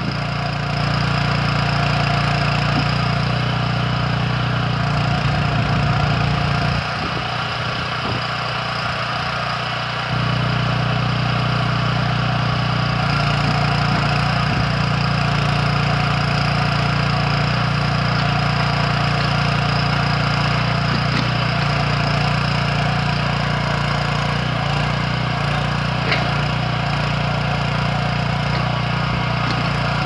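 Kellfri towable backhoe's 9 hp petrol engine running steadily, powering the hydraulics as the boom and bucket dig. The engine note drops for a few seconds about a third of the way in, then comes back.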